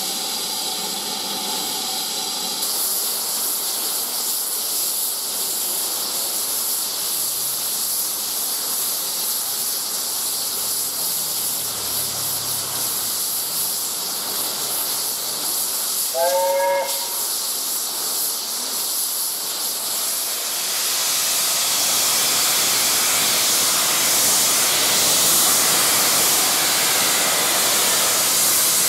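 Steam locomotive No. 75014, a BR Standard Class 4 4-6-0, hissing steadily as it blows off steam at its safety valves. A short whistle toot sounds about halfway through. In the last third the hiss grows louder as steam billows from the cylinder drain cocks while the engine starts away.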